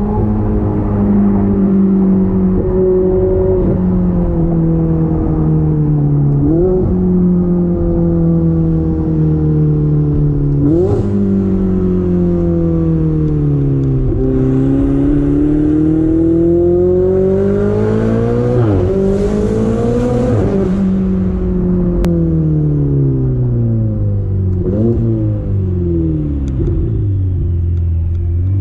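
Ferrari 488 Spider's twin-turbo V8 through a Capristo straight-pipe exhaust with muffler and catalysts deleted, heard from the cabin while driving. The engine note rises and falls with the throttle, with several quick sharp rev blips, a long climb in revs about halfway through, then a long drop as the car slows.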